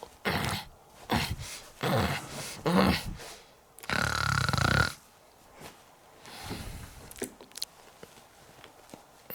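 Exaggerated comic snoring voiced for a puppet: several short snores in quick succession, then a longer, louder breath about four seconds in with a steady whistle in it.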